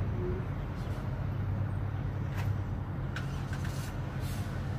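Steady low hum of motor vehicle engines and traffic, with no distinct events standing out.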